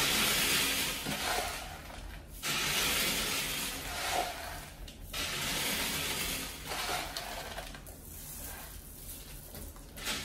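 Grain poured by hand through a wire-mesh lid, falling onto the glass floor of a tank in a dense rattling hiss, three pourings of two to three seconds each.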